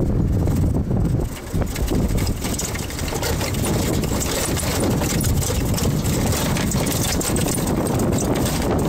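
Vehicle driving on a rough dirt track: the engine runs steadily under a continuous low rumble, with frequent small knocks and rattles from the bumpy ride.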